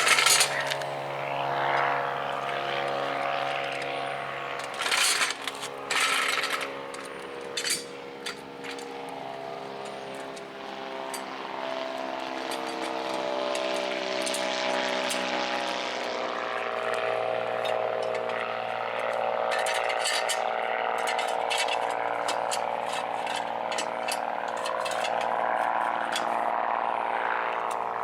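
A car jack being raised under the vehicle, with scattered metallic clicks and knocks, over a steady mechanical hum whose pitch drops slightly about halfway through.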